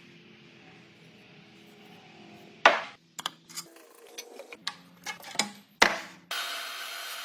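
Woodworking sounds in quick succession: a faint low hum, then sharp knocks and taps on wood, loudest about a third of the way in and again near the end, followed by a burst of rasping like sawing.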